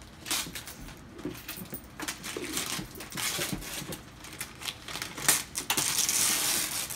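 Wrapping paper rustling and crackling as it is torn off a large gift box, with a longer, louder tear about six seconds in.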